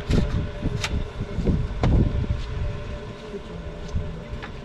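Wind buffeting the microphone as a rough, uneven low rumble, with a few sharp knocks and clicks.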